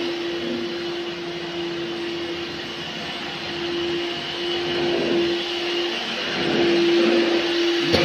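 Vacuum cleaner running steadily: a constant motor whine over a rush of air, growing a little louder in the second half.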